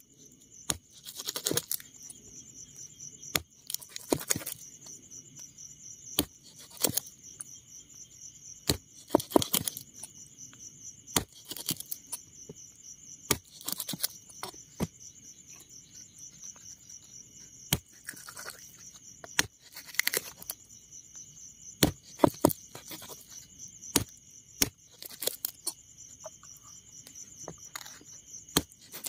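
Irregular sharp chops of a knife cutting through meat and bone on a board, every second or two and sometimes in quick pairs, as snake and bird meat is cut into pieces. Crickets chirr steadily behind.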